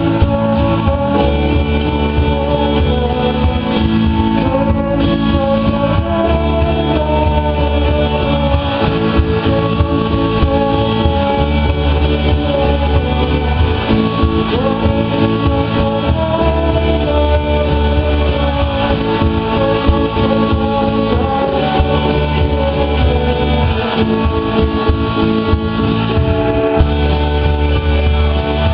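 Live rock band playing, with guitar over a bass line that changes note every couple of seconds.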